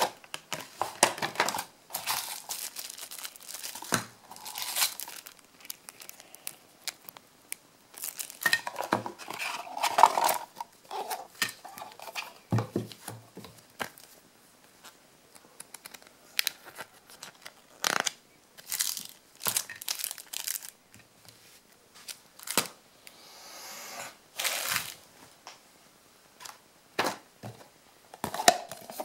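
Plastic and paper packaging crinkling and rustling in irregular bursts, with light clicks and knocks, as items are taken out of a box and set down.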